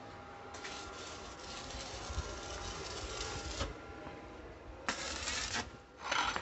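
Stick arc welding on a steel frame: the arc crackles and hisses for about three seconds, stops, then strikes again in two shorter runs near the end, the last one the loudest.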